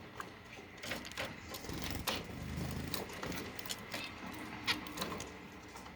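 A red-throated parrot finch pecking at and husking seeds: a scatter of short, sharp clicks at an irregular pace.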